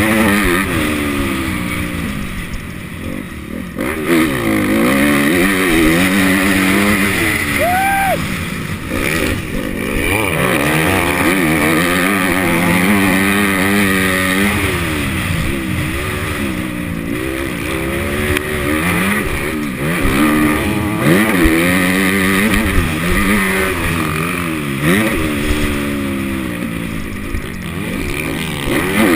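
Motocross bike engine being ridden hard, its pitch climbing and dropping again and again as the throttle opens and closes and the gears change.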